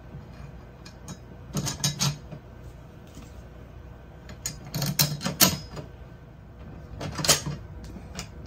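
Clicks and clatter of screws and small metal parts being handled and set into a 3D printer's metal bed plate, in three short bursts about two, five and seven seconds in.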